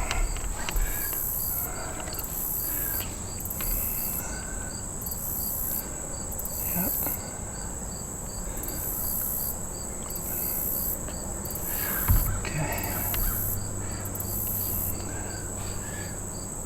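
Insects calling: a steady high trill, with a higher buzz that swells on and off about once a second and a faster, regular ticking chirp beneath it.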